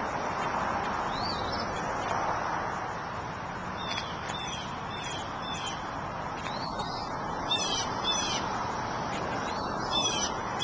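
A bird calling over and over in short, high, down-slurred notes, about two a second at first and then in quick clusters, over a steady rushing noise.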